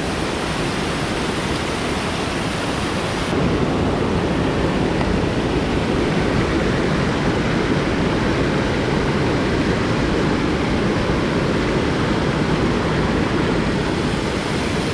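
Fast-flowing creek rushing steadily: a loud, even rush of water that grows louder about three seconds in.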